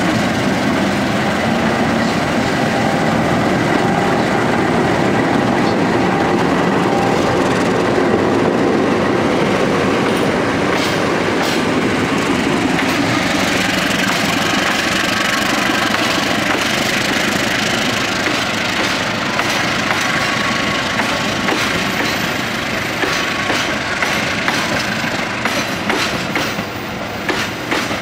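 Pair of CC206 diesel-electric locomotives running under power as they haul a passenger train past, followed by the new INKA coaches rolling by, their wheels clattering over rail joints and points. The clacking grows more prominent in the second half as the engine sound fades.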